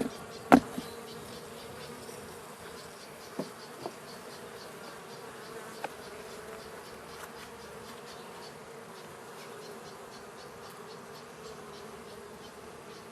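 Honey bees buzzing around an opened hive: a steady, even hum. A few sharp knocks cut through it, the loudest about half a second in and fainter ones around four and six seconds in.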